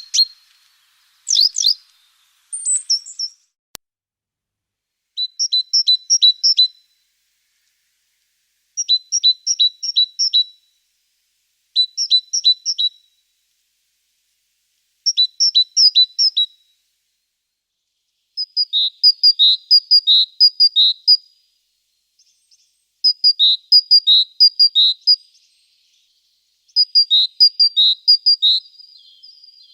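A small songbird singing short phrases of three to six high, evenly spaced notes, repeated every few seconds. From a little past halfway the phrases grow longer and quicker, with alternating higher and lower notes. A few sharper single calls come in the first seconds.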